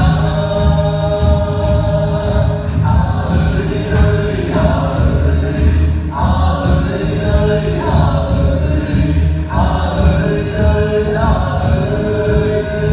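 Music with a group of voices singing together, over a strong bass line and a steady beat.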